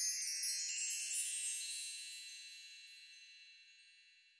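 Intro sound effect of sparkling chimes: many high, clear bell-like notes ringing together and slowly fading away over about four seconds.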